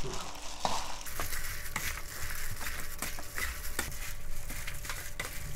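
A plastic-gloved hand tossing and kneading spicy seasoned raw skate and cut vegetables in a large stainless steel bowl. It makes irregular wet ticks and rustles as the pieces are turned over.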